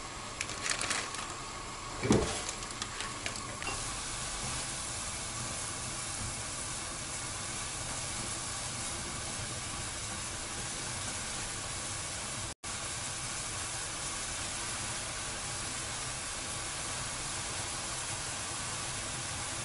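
Water boiling hard in an aluminium saucepan on a gas stove, a steady hiss and bubbling. In the first few seconds a few knocks and rustles as the instant noodle block goes in and is handled with metal tongs. The sound cuts out for a split second about two-thirds of the way through.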